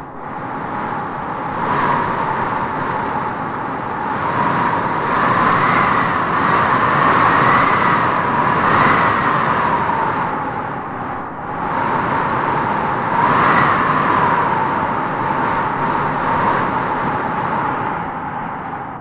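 Wind howling in gusts: a steady rushing with a moaning whistle that rises and falls in pitch. It swells strongest through the middle, drops briefly, swells again, then eases near the end.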